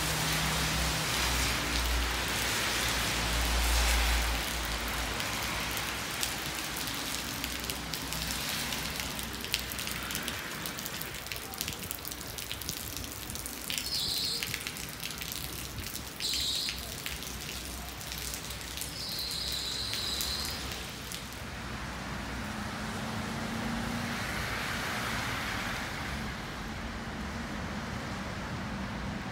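Heavy wet snow falling on a city street, a steady patter of wet flakes and drips on surfaces with the hiss of traffic on wet roads. A vehicle engine rumbles in the first few seconds, and a few short, high squeals sound around the middle.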